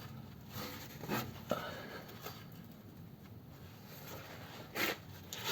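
A few light scrapes and knocks of hand work on a car's gearbox mount and its bolts, with a louder scrape about five seconds in.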